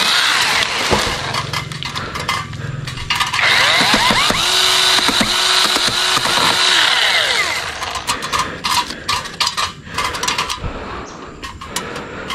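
KEELAT 8-inch cordless electric mini chainsaw running in bursts, cutting tree branches; its motor whine speeds up and slows down several times. A run of sharp cracks and snaps comes in the second half.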